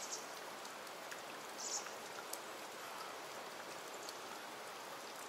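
Steady hiss of water running and trickling over rock in a small gorge stream, with a few faint ticks through it.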